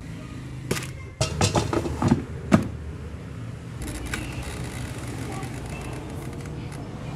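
Plastic air fryer basket slid into the machine with a few knocks and scrapes, then the mechanical timer dial is turned and the fan starts with a steady whir about four seconds in.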